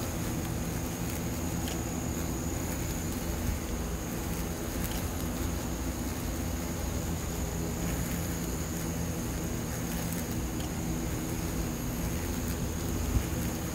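Steady low buzzing of insect wings: Asian giant hornets caught on sticky trap paper beating their wings, with a brief tap near the end.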